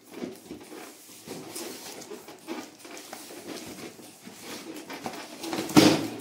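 A taped cardboard box full of books handled on a table: hands rubbing, shifting and scraping it with light knocks, then a heavier thump near the end as the box is tipped onto its side.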